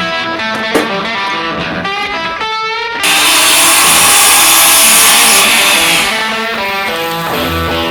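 Background rock music led by electric guitar, louder and fuller for a few seconds in the middle.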